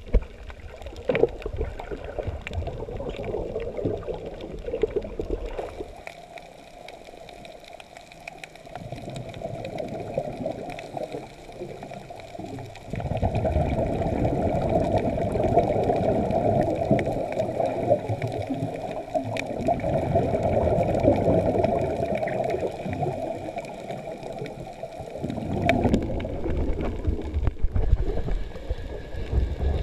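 Water heard underwater through a camera housing: a muffled rushing and gurgling of moving water, louder for a long stretch in the middle.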